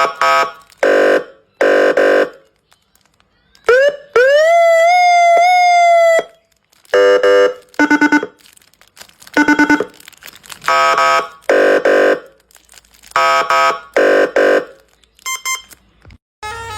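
Basuri-style modified multi-tone horn playing a tune in short blasts, each a chord of several tones that changes from blast to blast. About four seconds in, one long note slides up and holds for about two seconds.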